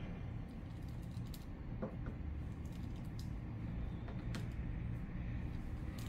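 Steady low rumble of city traffic, with a few faint sharp clicks and ticks scattered over it.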